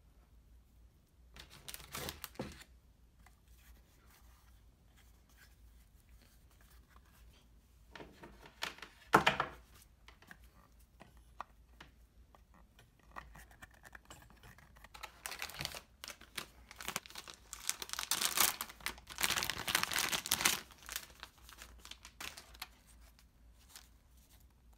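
Packaging handled in a few short rustling bursts, then a longer, louder stretch of crinkling and tearing as a silver foil bag is torn open and crumpled.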